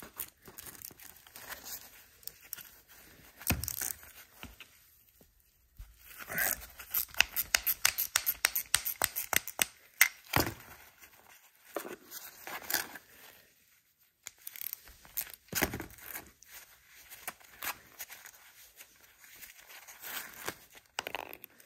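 Hand socket ratchet clicking as grease zerk fittings are unscrewed from a sway bar end link, a quick run of clicks about six to ten seconds in, with scattered knocks of the metal link and tool being handled.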